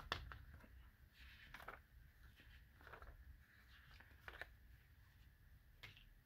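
Faint rustling of a spiral-bound sticker book's pages being flipped, a handful of soft paper swishes about a second apart.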